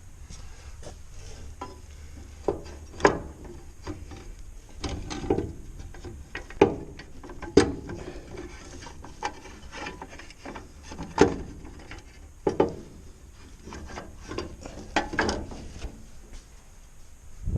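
Irregular clicks, knocks and scrapes of hand tools and metal parts being handled, some sounding like a ratchet wrench, over a low steady hum.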